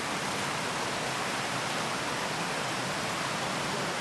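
Steady rushing of running water in fish-farm holding tanks.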